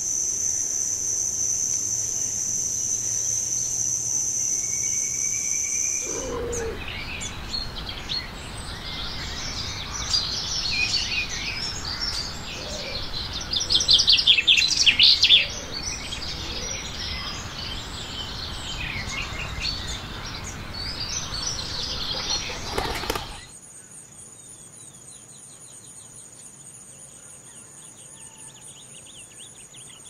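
Nature ambience in three parts: a steady high-pitched insect trill, then wild birds chirping and calling over a noisy background, with a quick loud run of calls about halfway through, then from about three-quarters of the way in a quieter, steady, pulsing insect chorus.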